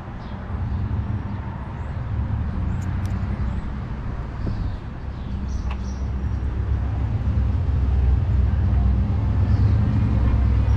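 Low, steady engine-like rumble that grows louder over the last few seconds, with faint bird chirps above it.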